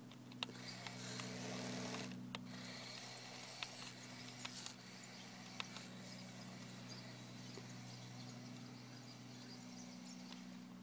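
Radio-controlled M1A2 Abrams model tank giving off a faint, steady low hum, with a rustle in the first two seconds and a few sharp clicks.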